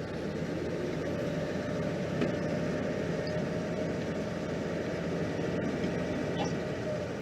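Ford farm tractor's engine running steadily as it drives along towing a baler.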